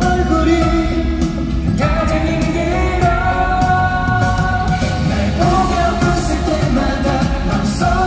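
K-pop song played over an arena sound system: a sung melody with long held notes over a full band backing track.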